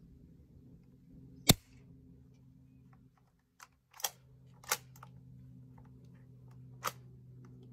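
A single sharp shot from an APS APM50 CO2-powered bolt-action airsoft rifle about a second and a half in, the BB clocked at about 747 fps. Three lighter clicks follow from about four seconds on.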